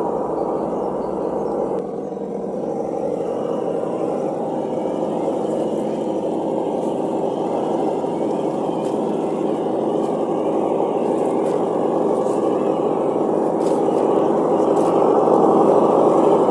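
Simulated engine sound from a Reely sound module in a Traxxas TRX4 RC crawler, running steadily through its small speaker and slowly growing louder, with a short dip about two seconds in.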